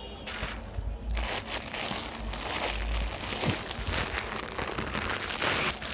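Crinkling and rustling of a plastic-packed saree being taken from the shelf and handled. It starts about a third of a second in and goes on almost without a break.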